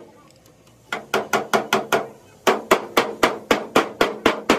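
Hammer beating out a dent in a car's sheet-metal body panel: quick, even sharp knocks about four a second, a run of about six, a short pause, then a longer run that carries on.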